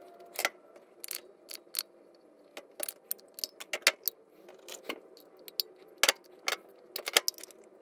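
Die-cast metal foot switch being handled and opened: a run of irregular small metal clicks and clinks as its casing and parts are worked apart.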